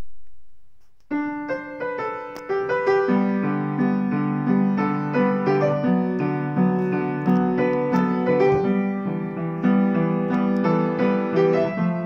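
Upright piano playing a piece that begins about a second in: a melody over a steadily repeating low accompaniment in the left hand.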